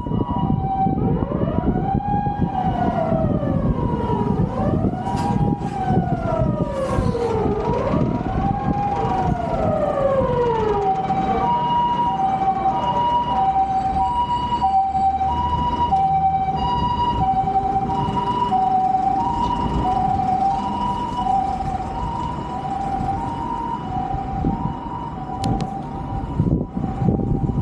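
Japanese ambulance siren sounding its two-note hi-lo "pee-po" pattern, with a wailing siren sweeping slowly up and down over it for about the first ten seconds, then the two-note pattern alone. Traffic rumbles underneath.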